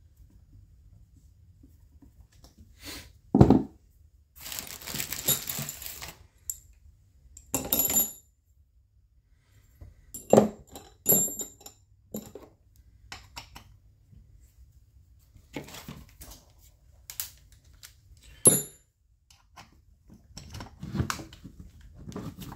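Scattered knocks and light metallic clinks of hand tools and small chainsaw parts being picked up and set down on a workbench, with a rustling scrape lasting over a second about four seconds in.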